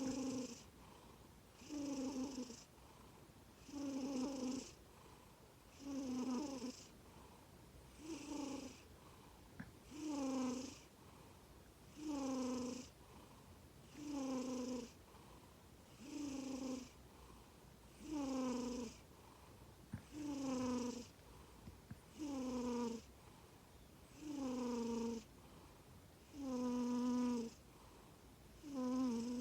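Norwegian Forest Cat snoring in its sleep: a buzzing snore with each breath, about one every two seconds. Each snore lasts under a second, dips slightly in pitch and carries a breathy hiss.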